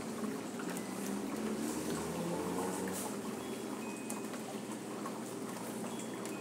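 Wort draining from a lifted perforated grain basket back into a stainless steel brew kettle, a steady trickle as the mash runs off before the boil.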